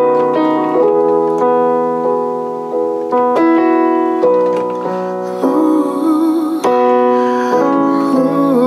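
Digital piano playing slow, sustained chords, a new chord struck about once a second.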